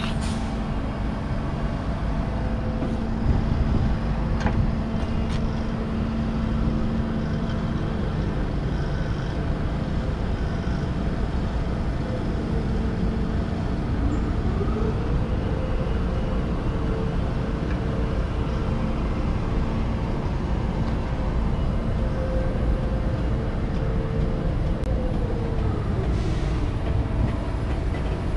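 Container gantry crane lowering a refrigerated container onto a truck trailer, over a steady engine rumble. About halfway through, a motor whine rises in pitch, holds, and falls away near the end. Two faint knocks come a few seconds in.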